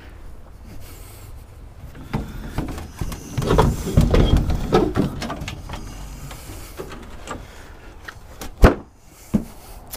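Aluminium-edged wooden loading ramps being lifted and shifted about: rough scraping and rattling for a few seconds in the middle. Near the end comes one sharp, loud knock, with a smaller one just after.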